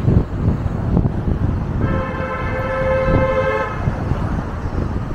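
A road vehicle's horn sounds once, a steady pitched note held for nearly two seconds about two seconds in, over a constant low rumble of street traffic.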